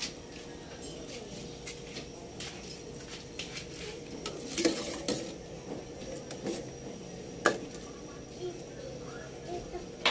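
A metal ladle stirring pork chunks in a metal pot of simmering broth, scraping and clinking irregularly against the pot, with one sharp clink about seven and a half seconds in.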